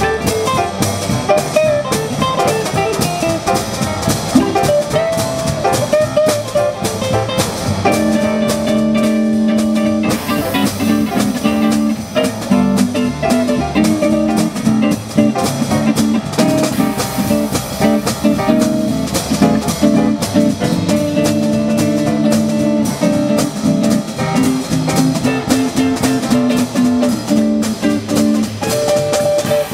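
A small live band playing a tune together: piano, archtop guitar, upright bass and drum kit, with the drums keeping a steady beat.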